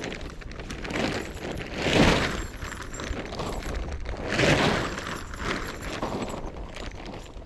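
Tent fabric rustling and flapping as it is shaken out and dragged flat over grass, in several swishing rushes; the loudest come about two seconds and four and a half seconds in.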